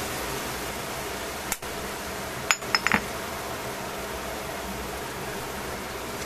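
Shimeji mushrooms in sauce sizzling steadily in a stainless steel pan, with a single click about a second and a half in and a few sharp clinks about halfway through.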